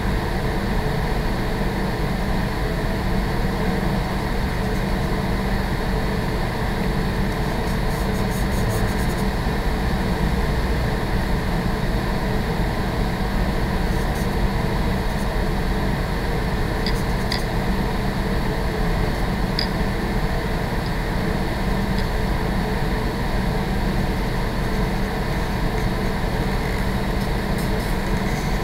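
Room ventilation system running: a steady, loud rushing hum with no change in level.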